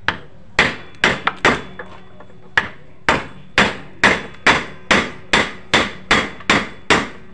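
Hammer blows on a wooden block held against the end of a Yamaha Mio M3 125's final-drive gearbox shaft, driving the shaft out of the aluminium gear case to get at a worn, loose 6204 bearing. A quick cluster of knocks comes first, then a short pause, then a steady run of blows about two a second, each with a brief metallic ring.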